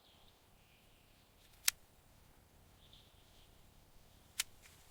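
Two sharp snips of hand shears cutting grape clusters from the vine, about a second and a half in and again near the end, with near silence between.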